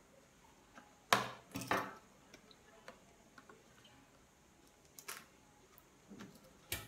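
A small hand tool picking and scraping at the seal of a cardboard product box: light clicks and scrapes, four sharper ones standing out, with faint ticks between.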